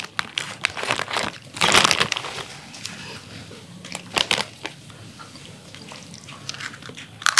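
Plastic snack packets crinkling and a Pringles can's plastic lid being pulled off with a loud snap, a sharp "katak", amid irregular crackly handling.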